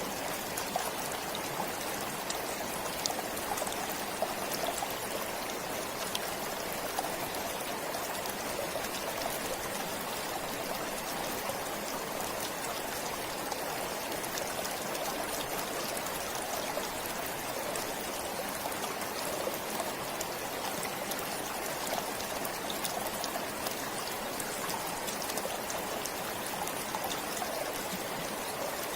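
Stream of water flowing steadily, an even rush with faint scattered ticks from small splashes.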